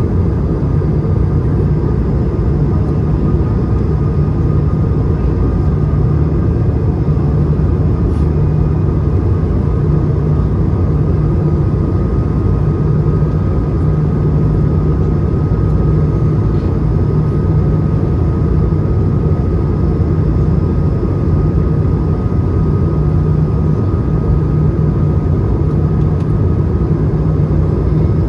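Cabin noise inside an Airbus A220-300 on approach, its Pratt & Whitney PW1500G geared turbofans and the airflow giving a low, steady noise with a faint even whine above it.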